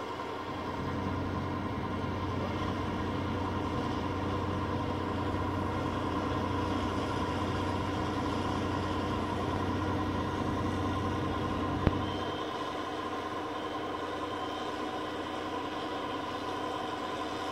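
John Deere combine harvester running: a steady engine drone with a high steady whine over it. A sharp click sounds about twelve seconds in, and the low part of the drone drops off just after.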